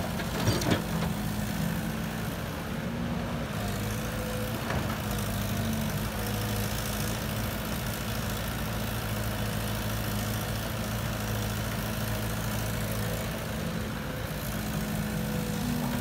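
Caterpillar excavator's diesel engine running steadily while it digs and loads soil into a dump truck. Its note drops lower about four seconds in and rises again near the end. A short clatter about half a second in, as soil falls into the truck bed.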